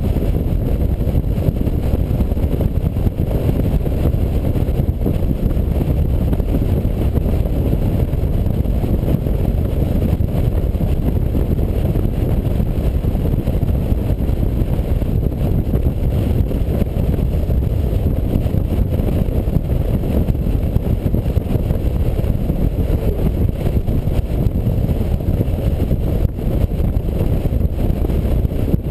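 Touring motorcycle cruising at road speed: a steady low rumble of wind buffeting and road noise over the engine, heard from a camera behind the windscreen.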